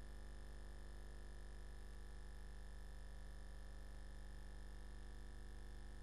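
Steady low electrical hum with faint hiss and no programme sound, the hum carried on an old videotape recording.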